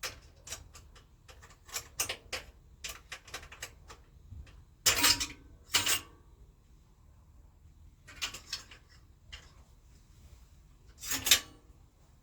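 Small metal parts and tools being handled: a run of quick clicks and light clinks, then louder metallic clatters about five and six seconds in and again near the end, as bolts, screws and parts are picked up and set down while the bicycle's wheel and brake are put back together.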